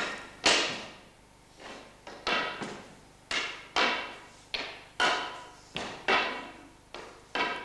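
A series of sharp knocks at an uneven pace, roughly one or two a second, each ringing out briefly after the strike.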